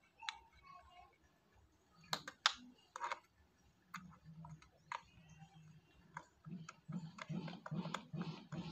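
Plastic clicks and taps as a battery cover is fitted onto a toy boat's plastic hull, then a small screwdriver turning the cover's screw into the plastic, heard as a quick even run of short clicks, about three or four a second, from about six and a half seconds in.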